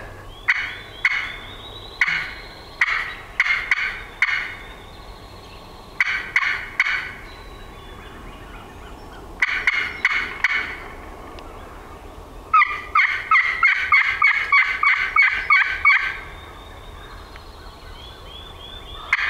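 Hen-turkey calling on a hand-held friction turkey call, worked in sharp, irregular cuts to provoke a gobbler into answering. Near the end comes an even run of about a dozen quick notes, roughly four a second.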